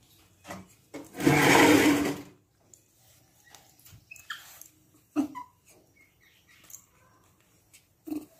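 Baby monkeys scuffling on a concrete floor with a few faint squeaks, broken by one loud harsh noise lasting about a second, a second in.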